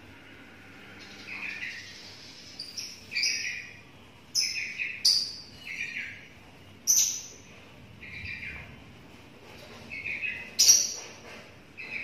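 A lovebird chick about 17 days old giving short, harsh chirping calls again and again at an uneven pace. A few louder, shriller cries stand out, around the middle and near the end.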